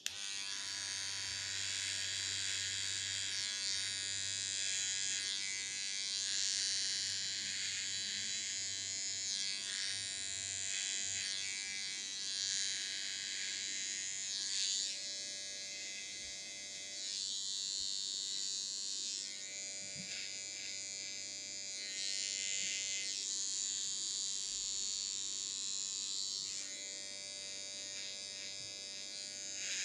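Electric hair clippers switched on and buzzing steadily, the brighter part of the buzz swelling and fading every few seconds as the clippers work through the hair.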